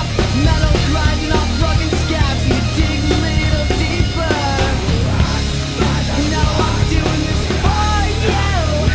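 Band playing loud punk rock, with regular drum hits under a steady bass and melodic lines that bend in pitch.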